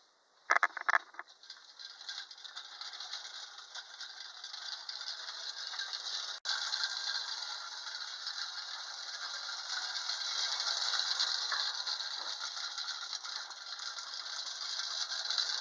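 Clockwork mechanism of a wind-up tin tricycle toy running, a steady whirring rattle that grows louder over the first several seconds. There are a couple of sharp knocks about half a second in.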